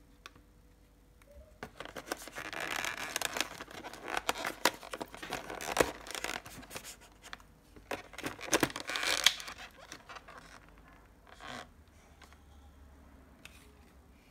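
Crinkling and rustling of small plastic toy packaging in two spells, with sharp clicks and taps as miniature toys are pressed into the slots of a hard plastic collector's case; softer, scattered clicks after about ten seconds.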